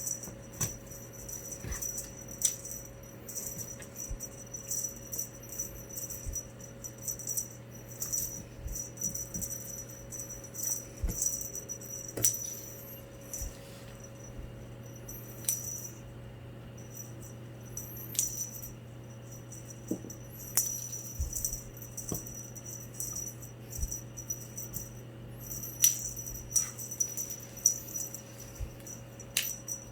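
Cat teaser wand toy being shaken, rattling and clicking in short, irregular bursts, over a steady low electrical hum.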